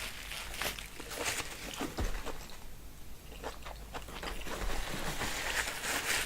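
Close-miked eating sounds from a seafood boil in sauce: irregular chewing, wet smacking and crunchy bites, with a quieter stretch about halfway through.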